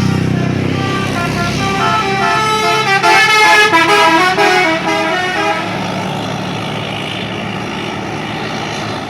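Bus basuri telolet horn, a multi-tone musical horn, playing a quick tune of stepped notes from about a second in until around five and a half seconds, over the bus's running engine.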